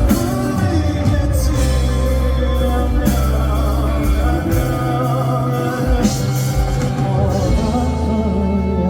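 Live band playing a slow pop-rock song, with steady bass, drums and sustained melodic lines, and singing over it.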